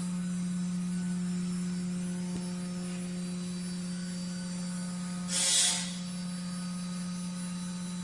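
Steady low electrical hum from running machinery, with a short hiss like an air blast about five and a half seconds in.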